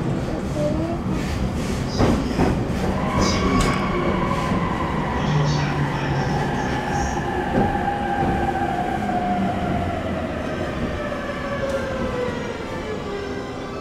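E231-series electric train's Hitachi IGBT-VVVF inverter whining during braking, its pitch falling steadily as the train slows into a station, over the car's running rumble. A few sharp wheel clicks over rail joints come in the first few seconds.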